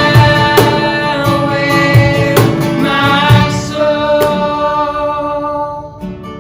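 Live worship band (drums, guitar and held sung notes) playing, with repeated drum and cymbal hits. Near the end the full band drops away, leaving quieter guitar.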